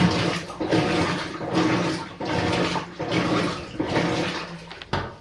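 Washing machine in its main wash: water sloshing in the drum in surges about once a second over a low motor hum, with a sharp click near the end as the machine stops.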